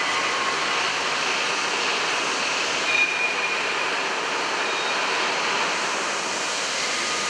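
Steady running noise of a 1963 Droop & Rein D 175 V horizontal boring and milling machine, an even hiss-like machine sound with a brief high tone about three seconds in.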